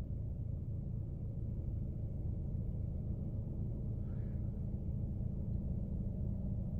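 Steady low background hum with no other clear sound.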